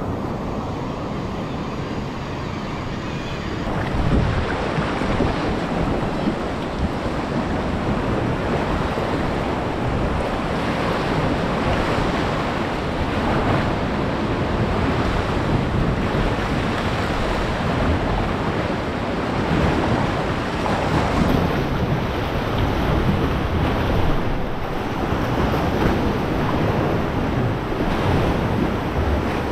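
Choppy sea and surf washing and breaking against chalk cliffs and into a sea cave around a kayak, with wind buffeting the microphone.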